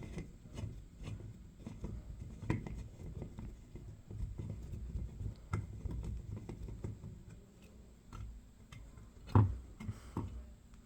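A screwdriver working small screws in a fire alarm's housing: scattered light clicks and rubbing, with one louder knock about nine and a half seconds in.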